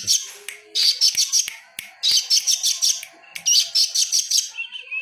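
A songbird singing in fast chattering phrases of high repeated chirps, about eight notes a second. Three phrases of about a second each are separated by short pauses.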